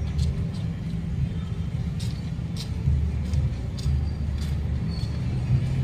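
Steady low mechanical rumble, like an engine running nearby, with faint scattered high ticks now and then.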